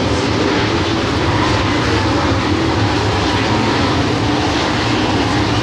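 A field of dirt late model race cars running around the track, their V8 engines blending into one loud, steady drone.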